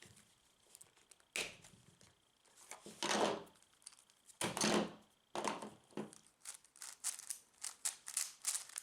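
A new stickerless YuXin 5x5 plastic speed cube being handled and turned. A few louder rustling, scraping strokes come first, then a fast run of plastic clicks as the layers are turned. The clicking comes from a very loose, untensioned cube.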